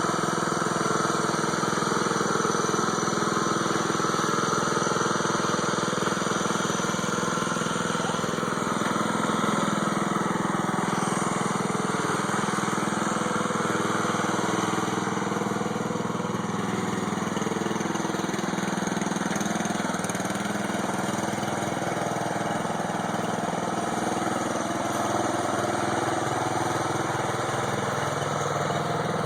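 Lawnmower engine of a lawnmower-based airsoft tank running steadily, with little change in speed.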